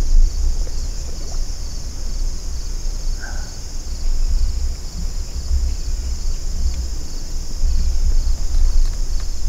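Steady high-pitched chorus of insects singing in a field at dusk, over an uneven low rumble of wind on the microphone.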